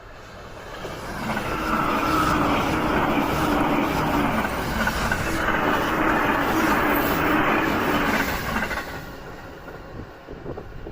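An electric passenger train running past: the sound builds over about two seconds, holds for several seconds with a steady hum in it, then fades away near the end.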